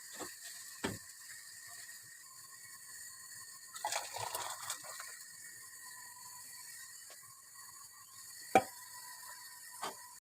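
Kitchen clatter: a few sharp knocks of utensils or cookware, the loudest near the end, and a short splashing or rustling about four seconds in, over a steady faint high-pitched whine.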